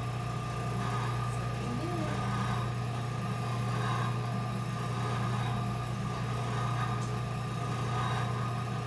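Steady low machine hum with a fainter high tone over it, unchanging throughout.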